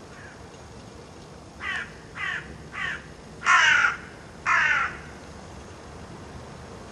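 A crow cawing five times: three short caws, then two longer, louder ones, over a faint steady hiss.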